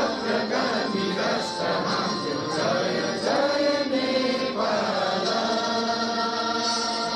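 A choir singing with instrumental backing, a continuous sung melody.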